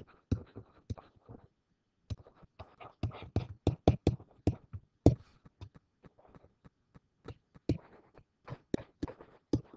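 A pen stylus tapping and scratching on a digital writing surface as handwriting is written: a quick, uneven run of short clicks and ticks, with a brief pause near the start.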